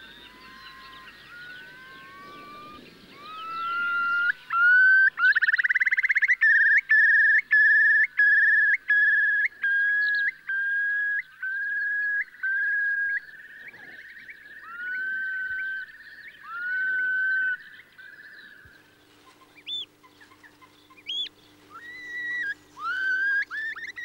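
Eurasian curlew's display song: rising whistled notes that quicken into a loud bubbling trill about five seconds in, then slow into a run of repeated slurred whistles that fade away. A few short, sharp rising whistles follow near the end.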